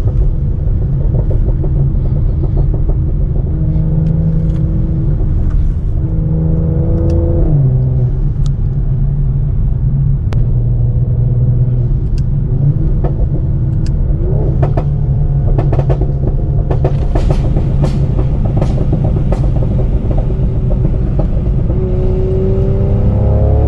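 Tuned Mercedes-AMG C43's twin-turbo V6 and exhaust under way, engine note rising and dropping several times through the gears. Sharp pops and crackles from the exhaust on overrun, thickest in the second half.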